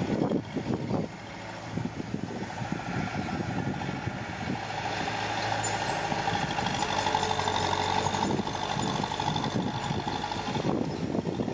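Diesel engine of heavy earthmoving machinery running steadily, with some clattering in the first second.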